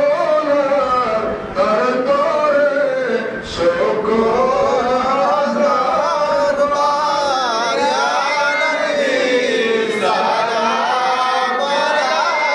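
A man's voice chanting Islamic devotional verses (zikir) in a melodic style, the pitch rising and falling in long, unbroken phrases.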